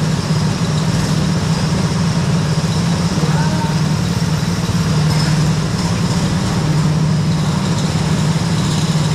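Go-kart engine running steadily, a loud, constant drone at an almost unchanging pitch.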